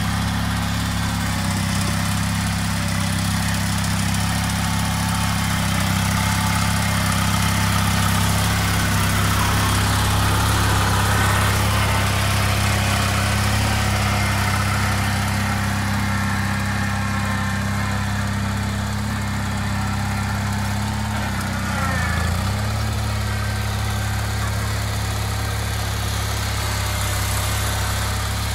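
Bolens garden tractor engine running steadily while it works a front loader, dipping briefly in pitch about three quarters of the way through.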